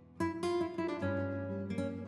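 Background music: an acoustic guitar strumming chords, with a new chord struck several times.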